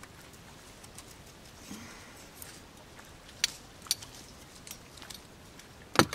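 Sharp metallic clicks and clinks from a spring-loaded yo-yo fishing reel being unhooked from a branch and handled, with two clearer clicks about three and a half and four seconds in, then a louder knock at the very end as it is set down in the boat.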